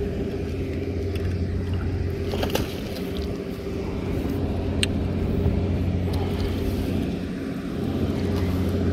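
Steady low drone of a canal pump running, holding an even pitch throughout. A couple of sharp clicks cut in over it, about two and a half and five seconds in.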